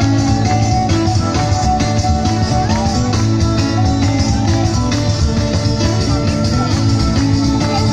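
Live band playing amplified music, acoustic guitar and drum kit with a steady beat.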